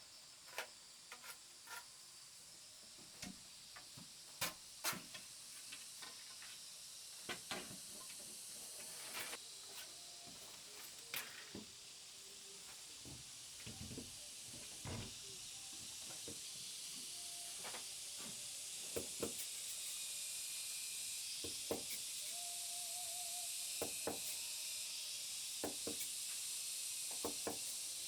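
A steady high hiss that grows louder over the second half, with sharp clicks and knocks scattered through it, the loudest a few seconds in.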